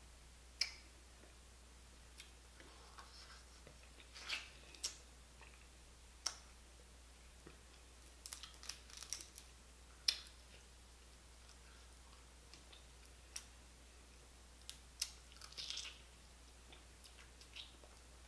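Cooked blue crab shells snapping and crackling as the meat is picked out by hand: scattered sharp clicks with quick runs of crackles about eight and fifteen seconds in, and some chewing, over a steady low hum.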